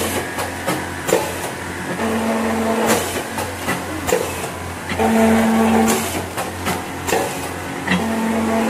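Automatic vertical powder packing machine running through its bagging cycle, over a steady low hum. About every three seconds a motor tone lasts about a second, followed by a sharp clack.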